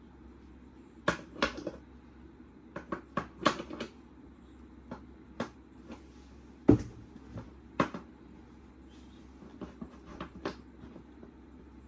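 Metal clicks and knocks from the folding tube legs of a Snow Peak Connection Table being swung out and handled against the metal tabletop, irregular, with the loudest, deepest thump about seven seconds in.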